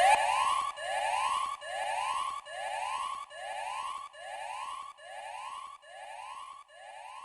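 Electronic siren sounding a repeated rising whoop, a little more than one sweep a second, fading out steadily.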